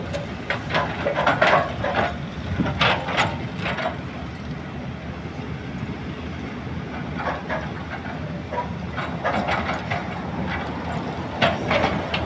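Hydraulic excavators working, their diesel engines giving a steady low rumble, with repeated short clanking or squealing sounds from the machines over it.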